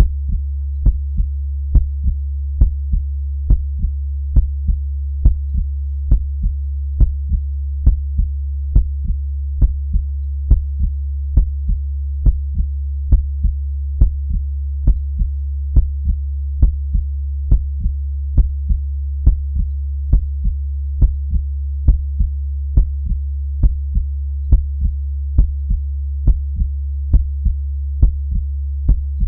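Slow, steady heartbeat: lub-dub pairs, a strong beat followed by a softer one, repeating a little faster than once a second, over a steady low hum.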